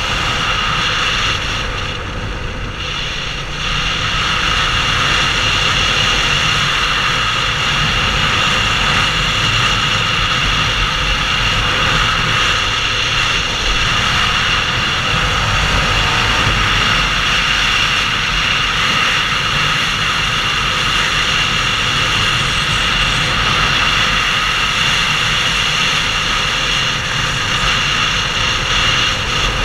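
Wind rushing loudly over the camera as a Suzuki SV650 is ridden at speed, with its 645 cc V-twin engine running underneath. The roar eases briefly a couple of seconds in, then stays steady.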